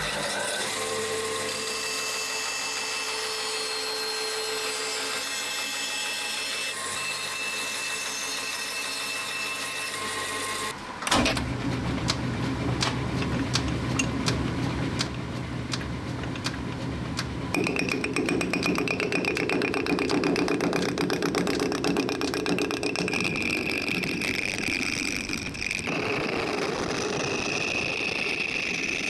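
Electric workshop power tools working wood for a new screwdriver handle. A motor runs steadily, then about 11 seconds in the sound turns rougher with rapid even ticking as cutting begins, and it changes again twice further on.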